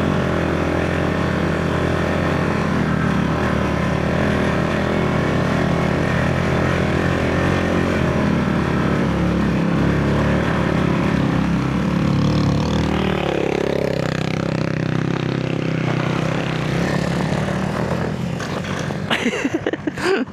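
Motorcycle tricycle engine running steadily under load as it climbs a very steep road; its note shifts about two-thirds of the way through.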